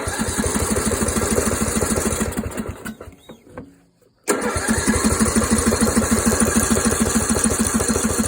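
14 hp Briggs & Stratton engine on a Yard Machines riding tractor being cranked by its starter twice with a short pause between, turning over in an even rhythm without catching. The owner's best guess for the no-start is a sheared flywheel key.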